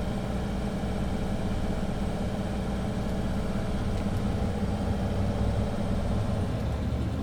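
A motor running steadily at a constant speed, giving an even low hum.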